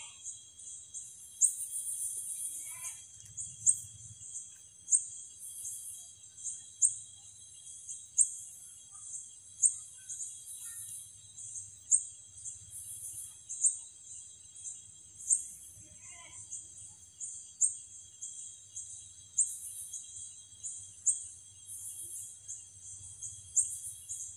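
Night insects calling: sharp high chirps repeat about once every second and a bit, with quicker faint clicks between them, over a steady high-pitched whine of other insects.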